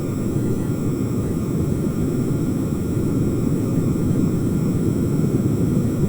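Busy harbour ambience: a steady, dense low rumble with faint steady high tones above it.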